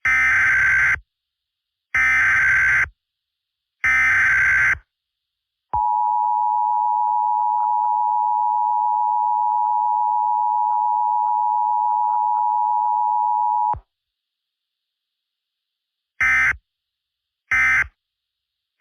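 Emergency Alert System tones: three screeching digital data bursts of the SAME header, each about a second long, then the steady two-tone attention signal held for about eight seconds. Near the end, shorter data bursts follow.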